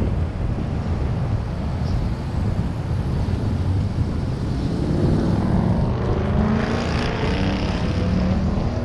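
Steady wind and road rumble. From about five seconds in, a motor vehicle's engine comes in with a pitched drone that slides in pitch, as a passing or revving engine does.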